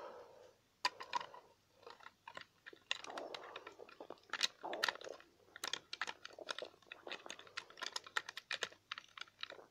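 Hard plastic fold-out toy playset being handled and folded shut by hand: irregular small clicks, taps and scrapes of plastic parts knocking together.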